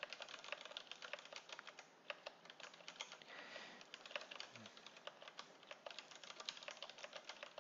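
Computer keyboard being typed on in quick runs of key clicks as a sentence is entered into a text editor, with a brief pause about two seconds in.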